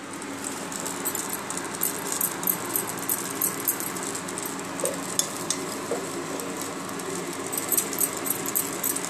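Ghee melting in a hot steel pot on the stove, crackling and sizzling lightly throughout, over a faint steady hum.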